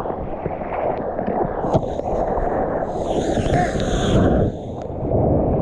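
Water sloshing and splashing against a GoPro at the surface while a surfer paddles, with low wind rumble on the microphone; a brighter fizzing splash runs from about three seconds in for a second and a half.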